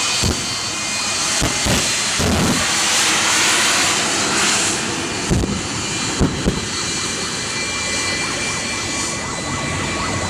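Jet-powered pickup truck's jet engine running with a steady jet roar as the truck drives along the runway, broken by several sharp bangs, the loudest about five to six and a half seconds in.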